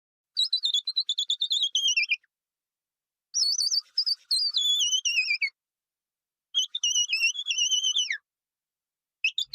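A high, warbling whistled song in three phrases of about two seconds each, each sliding down in pitch at its end, with dead silence between them and a fourth phrase starting near the end.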